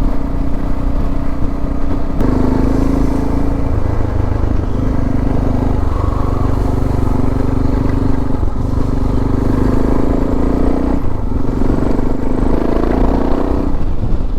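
Suzuki DR650 single-cylinder motorcycle engine running under way. Its note steps up about two seconds in, then dips briefly several times as the throttle is eased and reopened.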